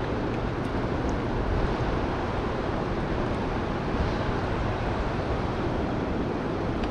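Steady rushing noise of a fast-flowing river current, mixed with wind.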